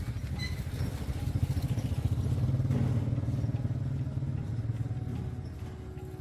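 Small gasoline engine running with a fast, even firing beat, getting louder toward the middle and then easing off.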